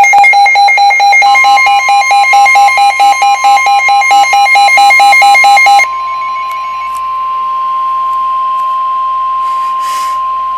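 Weather radio alert: rapid, loud electronic beeping for the first six seconds or so, overlapping the NOAA Weather Radio warning alarm tone, a single steady tone that starts about a second in and holds on after the beeping stops. It is the alarm that precedes a National Weather Service warning broadcast.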